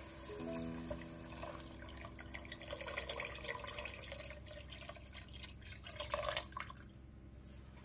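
Water poured from a jug into a stainless steel pot of lentils, a steady splashing stream into the liquid that stops near the end.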